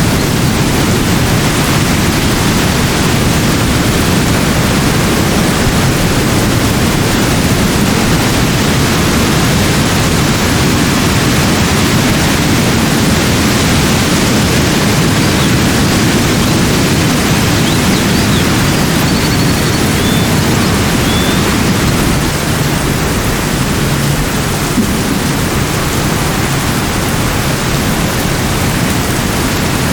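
Loud, steady rushing noise, fullest in the low range, with a few faint short high chirps over it.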